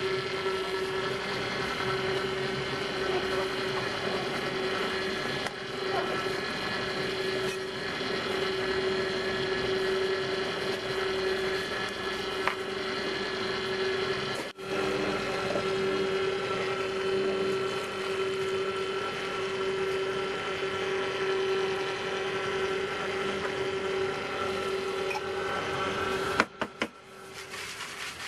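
Cold-press juicer running with a steady motor hum. The hum cuts off suddenly near the end.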